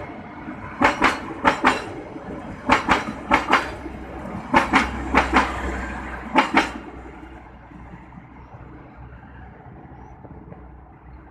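Passenger train coaches rolling past over a rail joint: sharp wheel clicks in pairs, one pair per bogie, over a low rumble. After about six and a half seconds the clicks stop and the rumble fades as the last coach moves away.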